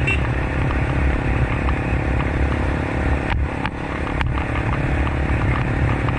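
Motorcycle engine running steadily while being ridden, with a few brief dips in the sound between about three and four seconds in.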